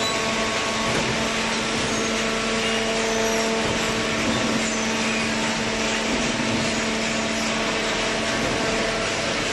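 Hydraulic cardboard baler running: a steady electric motor and pump hum over an even mechanical whir, with no change in pace.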